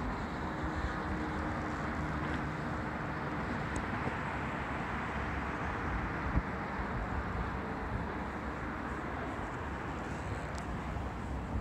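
Steady hum of distant road traffic, with a small knock about six seconds in.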